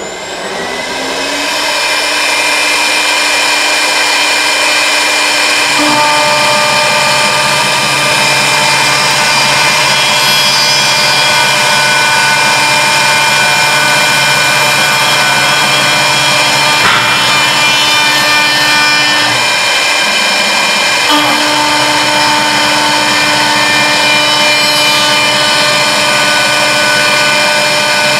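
Router spindle of a CNC wood lathe with a horizontal spindle, spinning up and cutting spiral twist grooves into a turned wooden baluster: a steady whine. A lower hum comes in about six seconds in, drops out near twenty seconds and returns a second later.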